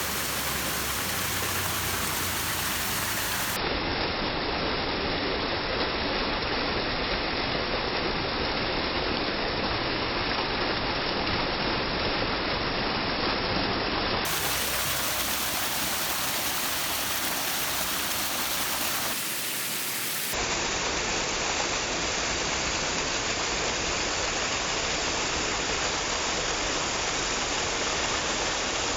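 Water of a small waterfall pouring and splashing, a steady rush of falling water. Its tone shifts abruptly several times, about 4, 14 and 20 seconds in.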